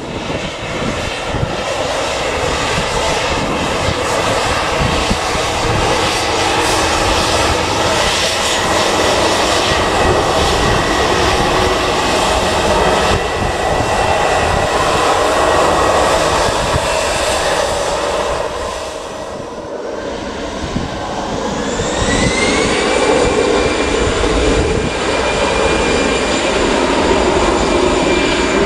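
Jet airliner engines running loud and close, a dense roar with steady whining tones. About 20 seconds in the sound dips; then the engines' whine rises in pitch over a couple of seconds and holds, louder again, as the engines spool up.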